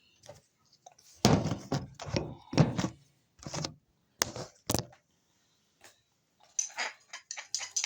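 Several knocks and thuds of kitchen things being handled, then near the end rapid clinking of cutlery against a dish.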